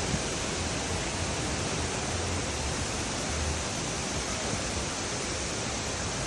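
Steady rush of a waterfall: an even wash of falling water with no breaks.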